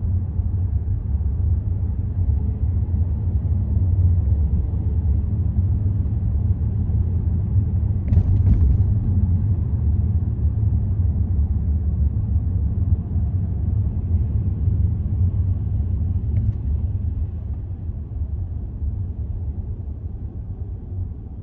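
Low, steady rumble of a car driving, from road and engine noise, easing off over the last few seconds. A brief sharp sound comes about eight seconds in.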